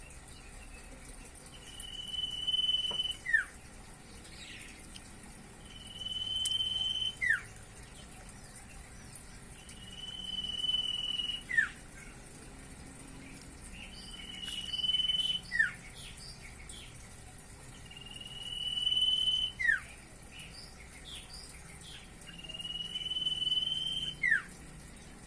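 Common iora (cipoh) singing: a long, steady whistle that swells in loudness and ends in a short, sharp falling note, repeated about every four seconds, six times. Faint short chirps come between some phrases.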